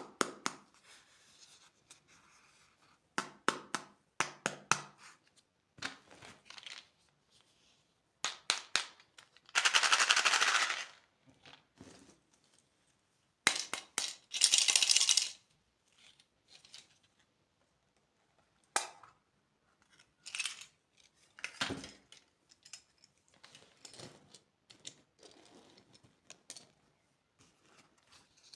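Candy packaging being handled and opened: scattered sharp clicks and taps, with two loud crinkling plastic-wrapper bursts, about ten and fourteen seconds in.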